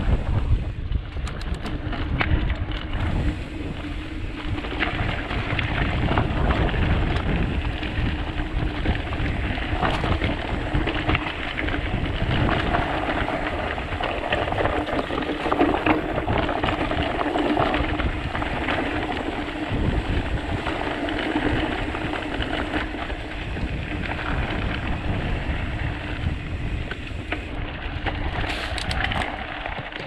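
Mountain bike riding over a rough, stony dirt trail: tyres crunching on loose gravel and the bike clicking and rattling over the bumps, with wind noise on the microphone.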